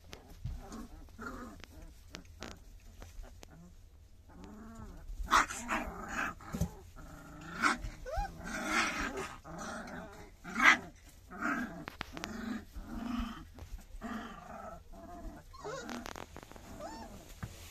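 Three-week-old puppies whining and squealing: a run of short cries that rise and fall, about one to two a second, loudest from about five seconds in until near the end.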